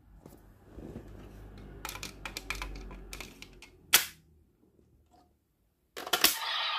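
Handling clicks from a plastic Premium DX Laser Raise Riser toy: a run of small clicks and rattles, a sharp louder click about four seconds in, and another loud click near the end as the toy's electronic sound starts.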